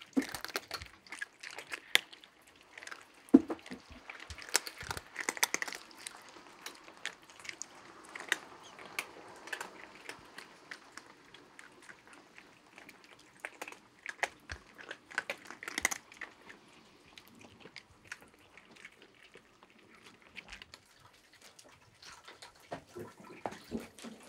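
Several cats crunching dry kibble: irregular crisp crunches and clicks, busiest in the first few seconds and again around the middle, growing sparse toward the end.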